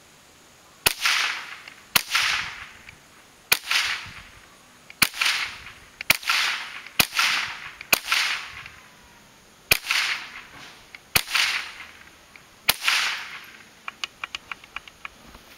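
Remington AR-15 rifle firing about ten single shots, one every one to one and a half seconds, each sharp crack followed by a lingering echo. Several light ticks follow near the end.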